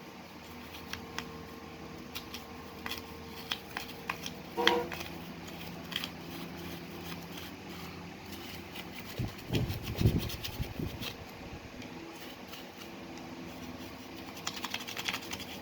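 Scattered small clicks and taps of plastic switch parts being handled, with a cluster of low knocks a little past halfway and a quick run of clicks near the end, over a steady fan hum.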